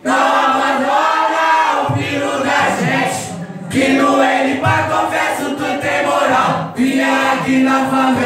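Music: a chanted vocal over a bass-heavy beat, with the bass coming in about two seconds in.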